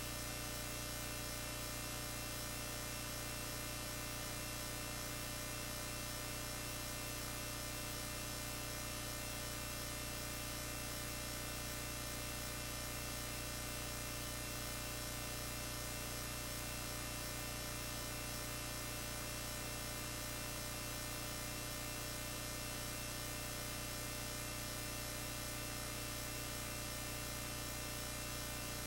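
Steady electrical mains hum with a buzzy edge, unchanging throughout, and no film soundtrack or music on it.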